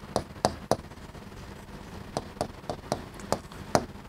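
Chalk tapping against a blackboard during handwriting: a string of about ten short sharp clicks, with a pause of about a second and a half after the first three.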